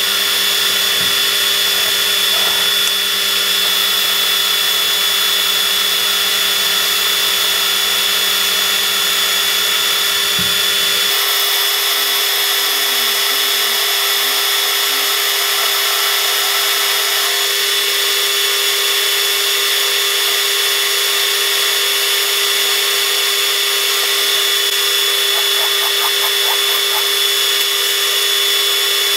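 Warco WM180 mini lathe running with its chuck spinning: a steady motor and gear whine with a high, steady tone above it. A low hum underneath drops out about eleven seconds in.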